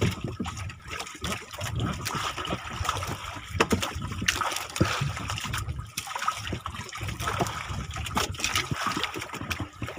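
Choppy sea water lapping and splashing against the hull of a small outrigger boat, with irregular small slaps and knocks.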